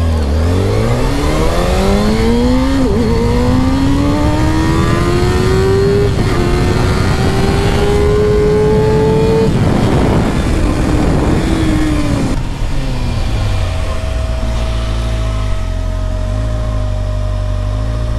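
Kawasaki Ninja ZX-6R sport bike engine accelerating hard from a standstill, its pitch rising through the gears with two quick upshifts at about three and six seconds in. The throttle closes near ten seconds and the engine note falls as the bike slows, then settles into a steady lower note while it cruises, with wind rush throughout.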